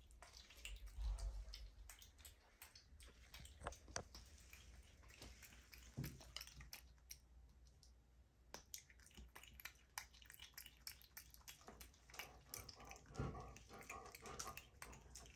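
Faint, irregular small clicks and crunches of a capuchin monkey chewing cashews.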